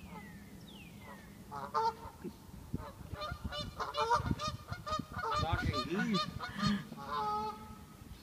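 Canada geese honking back and forth: a run of repeated calls that starts about two seconds in and comes thickest in the middle.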